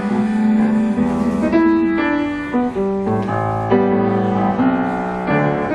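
Grand piano playing solo chords that ring on, with the voice gone, as the song's last bars.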